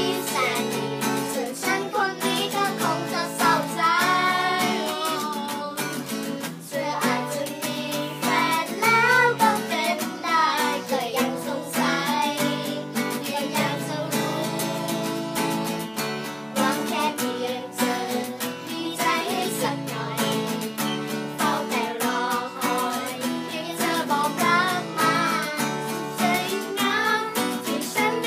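Young girls singing a song together to a strummed acoustic guitar.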